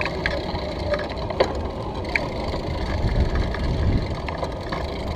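Bicycle riding over brick paving: a steady rumble with many small rattles and clicks.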